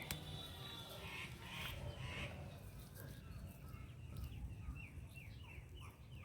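Faint bird calls: a run of short, high, falling notes about three a second through the second half, with a few scattered calls before.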